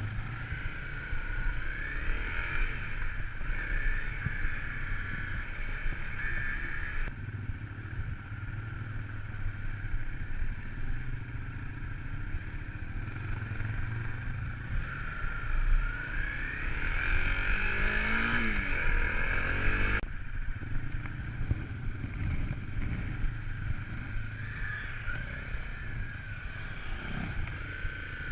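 Off-road vehicle engine running under changing load over a steady low rumble, its whine rising and falling in pitch as it revs up and eases off several times.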